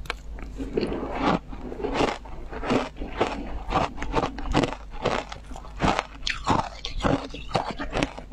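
Crunching of ice coated in passion fruit pulp being bitten and chewed close to the microphone: a steady run of sharp crunches, about two a second.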